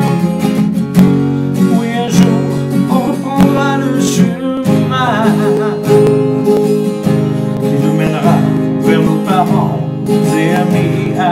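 Acoustic guitar strummed steadily, with a man's voice singing along without clear words twice, for a few seconds each time.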